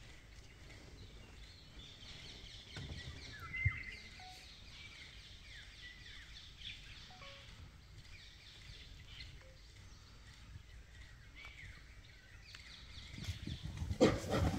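Wild birds calling over a quiet forest background, with short chirps and falling whistles, and a single knock about four seconds in. Near the end a sudden loud burst of noise breaks in.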